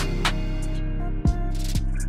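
Background music: a steady low drone with sharp notes struck twice, each note falling in pitch.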